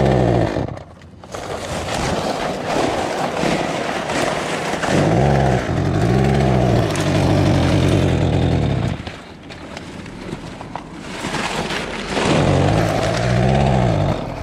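Gas chainsaw revving up and down in repeated bursts, dropping back to a low idle about a second in and again around the nine-to-eleven-second mark.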